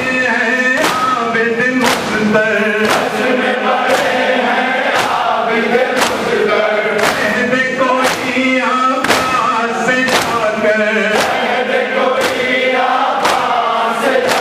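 A man recites a noha (mourning lament) through a microphone while a crowd of men chants along. Sharp hand-on-chest strikes of matam come in unison about once a second.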